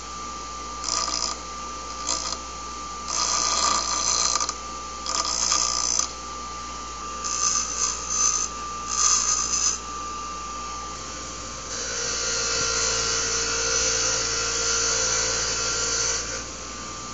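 Bench grinder running with a steady whine while the cut end of a 1/4-20 steel threaded rod is pressed against the grinding wheel in about seven short touches, grinding off the burr and putting a chamfer on it. About twelve seconds in, the rod end is held on the wire wheel for about four seconds of steady brushing, softening the edge.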